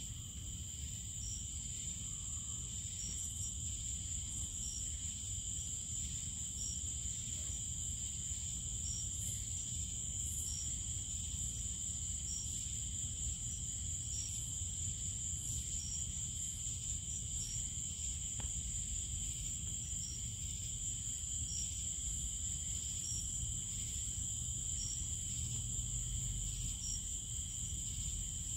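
Night insect chorus: a steady, high-pitched trilling of crickets, with short chirps repeating about once a second.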